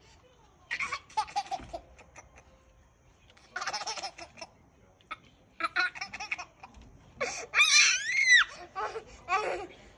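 A toddler laughing in several short bursts of giggles. The loudest is a high squealing stretch about eight seconds in.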